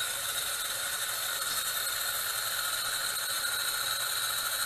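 Electric spice grinder running with a steady whir.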